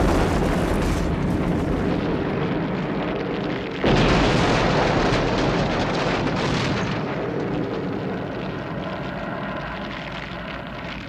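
Explosion of a burning car: a blast already running, a second blast about four seconds in, then a long rumble slowly dying away that cuts off suddenly.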